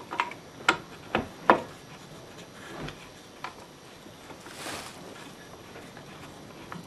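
Sharp knocks and clicks as an idle angle grinder is shifted and set in place against a steel channel stop on a wooden workbench, about half a dozen in the first three or four seconds, the loudest about a second and a half in. A short rustle a little before five seconds.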